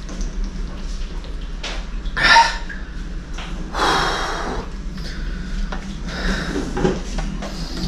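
A person gasping for breath while drinking a large amount of water, with a loud short gasp about two seconds in and a longer breathy gasp about four seconds in.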